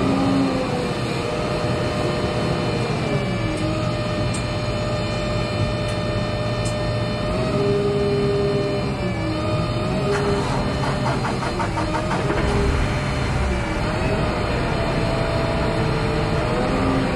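Diesel engine and hydraulics of a self-propelled gantry crane running steadily, the pitch of its whine dipping and coming back up every few seconds as the load on it changes. A rapid rattling flutter joins in around the middle.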